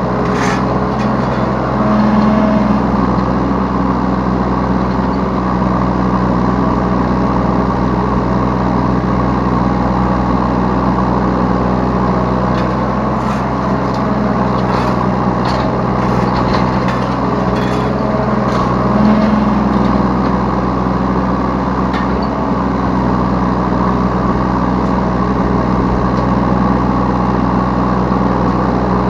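Yanmar B3 Sigma 3-ton mini excavator's diesel engine running steadily from the operator's seat, its tone rising briefly twice under hydraulic load. Scattered light clicks and knocks come through midway.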